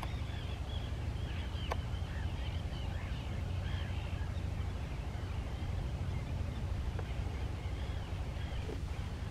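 Many short, arched bird calls overlapping from several distant birds, over a steady low rumble.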